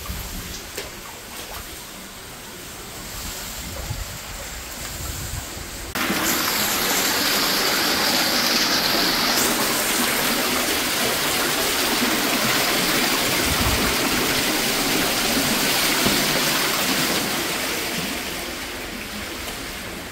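Water rushing and gurgling in a flooded toilet bowl, a loud steady rush that starts suddenly about six seconds in and eases off near the end.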